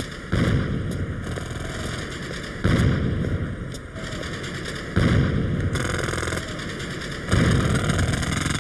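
Pneumatic jackhammer hammering in four loud rattling bursts about two seconds apart, with a quieter rattle between them.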